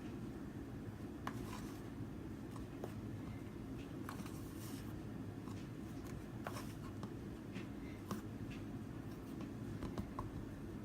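Chicken pieces being turned and pressed in flour and shaken off: short scratchy rustles and light taps at irregular intervals over a steady low hum.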